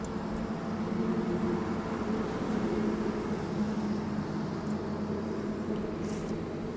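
A vehicle engine running, a steady low hum that swells slightly in the middle.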